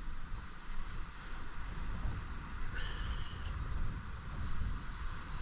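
Wind buffeting the microphone with a low, fluttering rumble over a steady wash of surf. A brief high-pitched call sounds about three seconds in.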